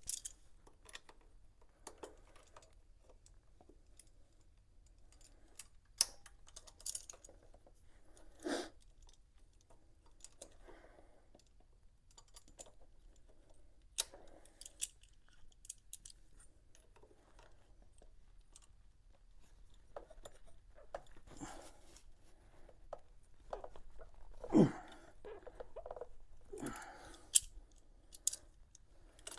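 Metal hand tools clinking: wrenches and a socket tool handled and fitted to tight bolts on a motorcycle engine's cylinder head. The sound is a scatter of light clicks, with a few sharper clanks.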